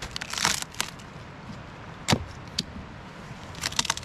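An axe chopping into an old cedar log to split it: a short crackling noise about half a second in, a sharp chop about two seconds in, and a few lighter knocks near the end.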